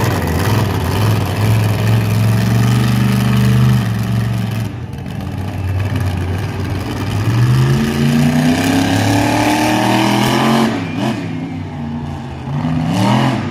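Monster truck engine running loud and steady, easing off, then revving up in a long rising climb that breaks off about ten seconds in, with a shorter rise near the end.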